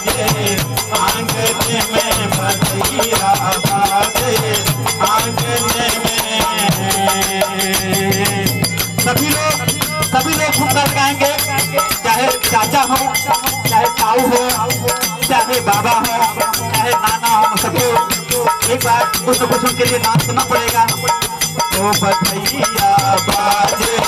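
Harmonium playing the tune of a Hindi badhai geet, a festive devotional folk song, with rattling hand percussion keeping a steady, fast beat.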